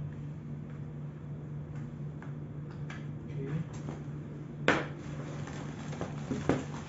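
Plastic office-chair backrest frame and cardboard packaging being handled: scattered light clicks and rustles, with a sharp knock about two-thirds of the way through and a smaller one near the end.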